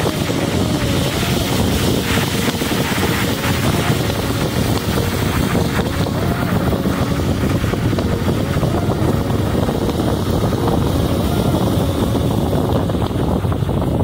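Steady road and wind noise of a car driving along a snowy road, with wind buffeting the microphone.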